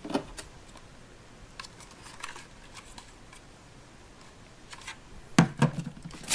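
Hands handling a plastic toy ice cream cart: a few faint plastic clicks and taps, then a louder bump and rustle near the end.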